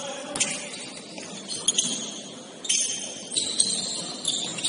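Basketball sneakers squeaking on a gym floor during play: short high-pitched squeaks at irregular intervals, mixed with a few sharp knocks.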